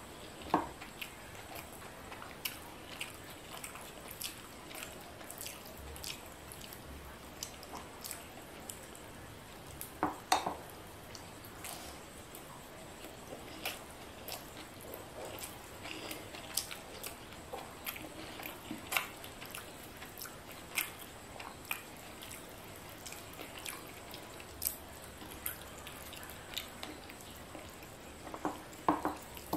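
Close-miked eating by hand: rice and fried fish being chewed, with frequent small wet clicks and smacks and fingers squishing rice on a plate. A few louder smacks come about ten seconds in and near the end.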